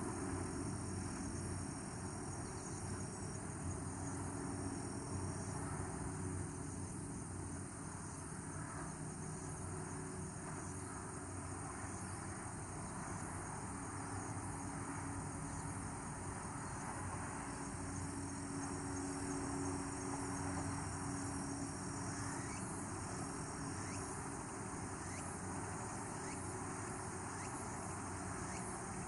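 Outdoor evening ambience: insects chirring steadily, with a steady high whine that comes and goes for a few seconds at a time, over a low hum of distant traffic.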